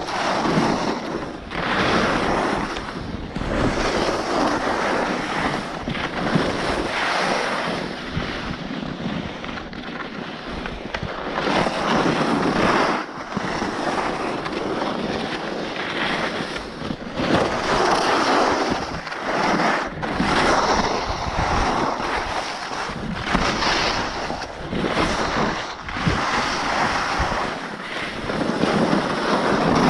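Edges scraping and hissing over snow during a fast run down a ski slope. The noise swells and fades every few seconds as the turns come, with wind rushing over the microphone.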